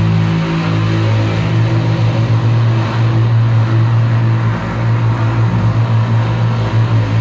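Wall of heavily distorted electric guitar drone and feedback, played loud through a PA: a low pulsing drone under a dense, noisy wash.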